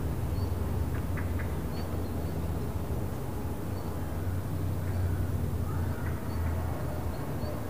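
Porsche 911 S/T's 4.0-litre flat-six engine idling as a steady low hum, with a bird chirping faintly.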